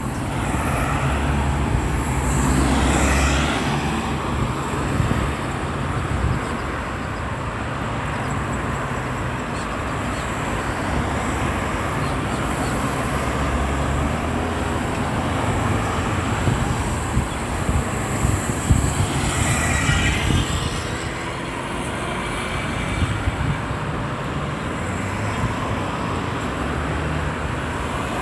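Busy road traffic: a continuous stream of cars and other vehicles running past, with two louder vehicles going by, one about three seconds in and one about two-thirds of the way through.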